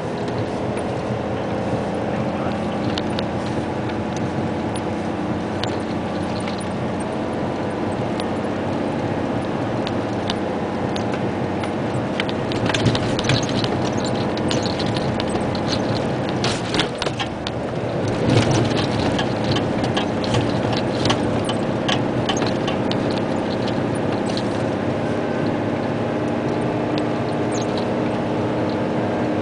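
Isuzu Giga dump truck's 380 PS diesel engine running steadily while driving, heard from inside the cab. Loose rattles and knocks from the cab and body over the rough gravel track come thickest about halfway through.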